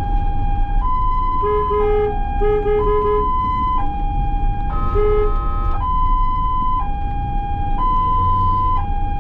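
Ambulance siren sounding a two-tone hi-lo wail, switching pitch about once a second, over low road rumble. A run of short horn beeps comes a couple of seconds in, and one longer horn blast around the middle.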